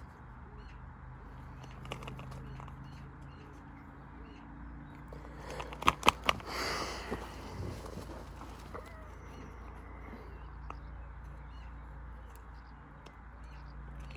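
Pinnacle washing machine running with a steady low hum, with a quick cluster of sharp knocks about six seconds in, followed by a brief rattling rush.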